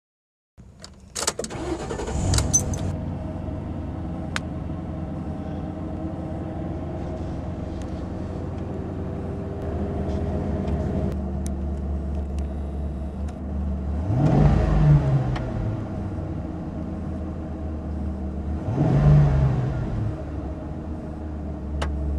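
2006 Ford Crown Victoria Police Interceptor's 4.6-litre V8 cranking and catching about a second in, then idling steadily. It is blipped up and back down twice, about 14 and 19 seconds in.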